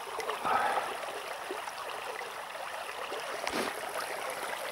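Fast-flowing shallow stream babbling steadily.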